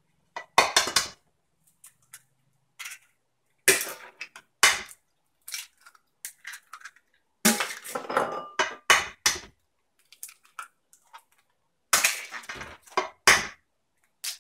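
Eggs cracked one-handed against the rim of a stainless steel mixing bowl: a series of sharp knocks and clinks of shell on metal, coming in clusters every few seconds.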